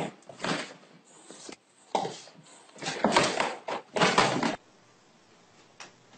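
A dog and a cat tussling on an upholstered chair: several short bursts of scuffling and bumping, cutting off suddenly about four and a half seconds in.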